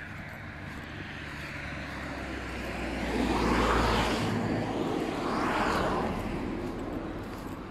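Two cars passing one after the other on an asphalt road, tyre and engine noise swelling and fading away: the first about halfway through, the second about two seconds later.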